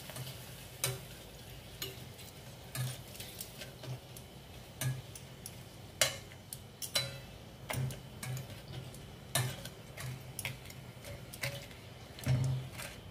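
Metal tongs clicking and tapping against the side of a stainless steel pot, irregular and about a dozen times, while food is turned in hot oil, over a faint frying sizzle.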